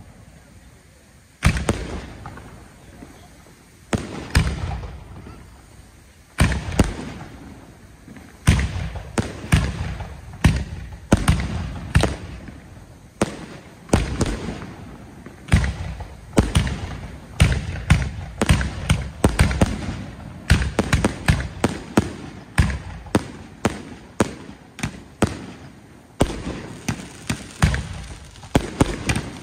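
Aerial firework shells bursting in a display: sharp bangs, each trailing off in an echoing rumble. They come a couple of seconds apart at first, then quicken to several a second through the second half.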